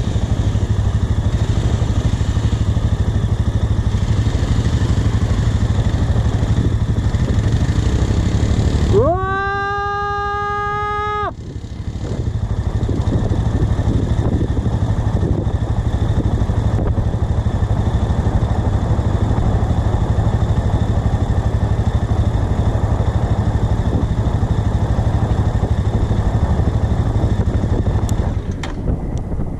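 Motorcycle engine running with a steady low rumble. About a third of the way in, a single steady pitched tone sounds for about two seconds.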